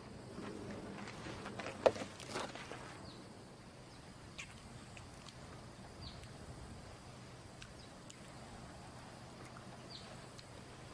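Quiet outdoor ambience with short high chirps every few seconds over a faint steady background. A sharp click and a brief rustle about two seconds in.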